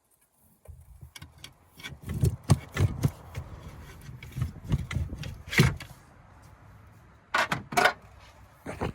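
Clunks and knocks of tools and metal parts in an engine bay as an alternator is worked loose and pried out, over a steady low rumble. The knocks come thick for about five seconds, then two sharp ones come close together near the end.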